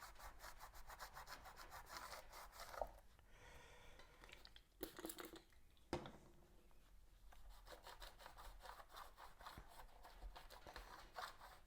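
Faint quick rubbing and scratching on the turntable's mechanism as old sticky grease is worked off its parts, with a few light clicks about 3, 5 and 6 seconds in.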